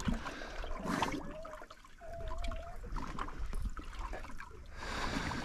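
Water lapping and trickling against the hull of a small drifting fishing boat, with scattered small splashes and a low rumble underneath.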